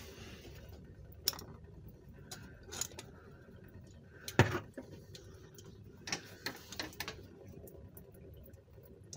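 Scattered small clicks and knocks of plastic quick-connect fuel-line fittings being worked loose by hand from a diesel fuel filter. The loudest knock comes about four and a half seconds in, with a quick run of clicks a couple of seconds later.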